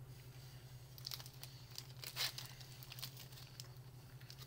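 Plastic Slim Jim wrapper crinkling and crackling as it is handled and peeled back, in scattered sharp crackles that are loudest about two seconds in, over a steady low electrical hum.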